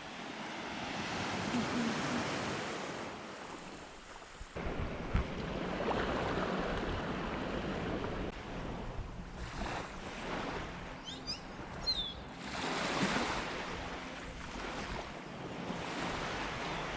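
Sea waves washing and wind blowing, swelling and fading in surges, with a sudden change about four and a half seconds in. A few brief high chirps come a little past the middle.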